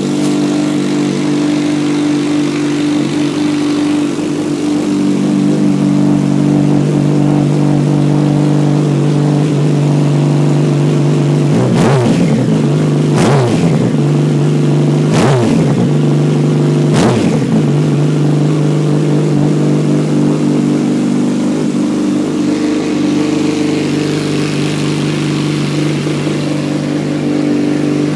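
Yamaha FZ1N's inline-four engine idling steadily through a Micron aftermarket exhaust, set up with a dyno-tuned Power Commander. Near the middle it gets four quick throttle blips, each rising and falling back to idle.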